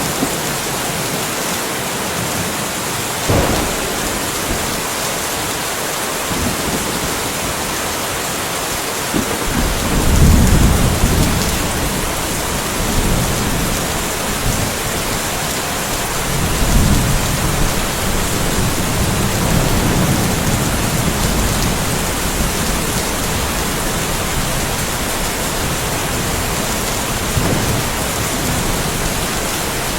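Steady rain falling, with thunder rolling over it: a short rumble a few seconds in, a louder roll about ten seconds in, and further low rumbles through the second half.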